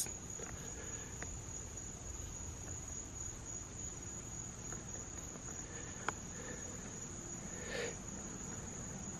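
Crickets chirring in a steady night chorus, one continuous high-pitched trill, with a faint click about six seconds in.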